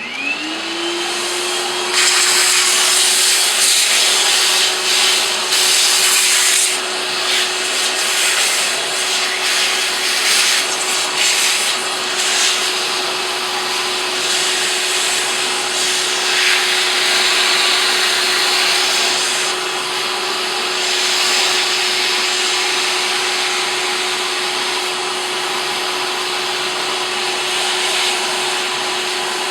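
Toner vacuum switched on, its motor whine rising to a steady pitch within the first second. It then runs steadily with a rushing airflow that swells and eases as it cleans toner out of the upper half of a copier developer unit.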